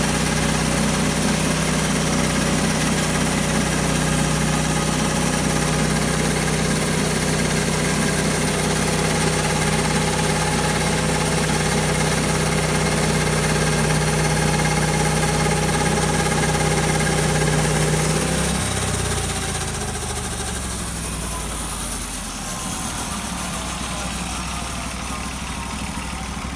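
Portable bandsaw mill's engine running steadily, then shut off about two-thirds of the way in, its pitch falling as it winds down over several seconds.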